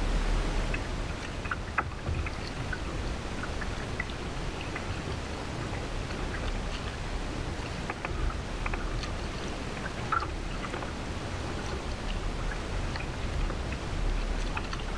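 Kayak being paddled: water splashing and dripping off a double-bladed paddle in scattered small drips, over a steady wash of water against the hull.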